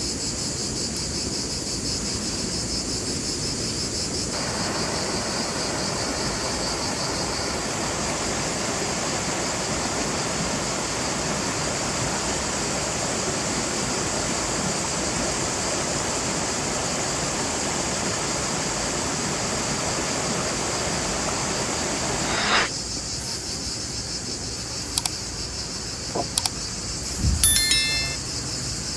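A steady chorus of crickets trilling, joined from about four seconds in by a rushing hiss that cuts off sharply a few seconds before the end, followed by a few light clinks.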